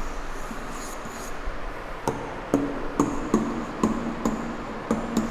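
A pen knocking and scratching on an interactive whiteboard as letters are written: a faint scratch about a second in, then from about two seconds in a string of sharp knocks, a few a second, each with a brief low ring.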